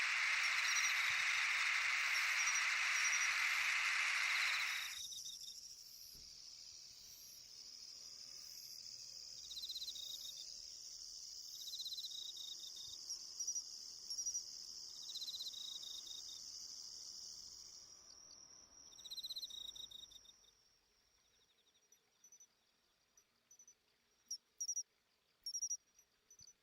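Crickets chirping and trilling in an autumn insect chorus. A dense, loud buzz for the first five seconds cuts off suddenly, leaving repeated high chirps that thin out after about twenty seconds into a few sparse, separate chirps.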